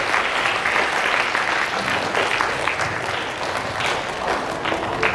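An audience of schoolchildren clapping together in a hall, steady applause that thins a little toward the end.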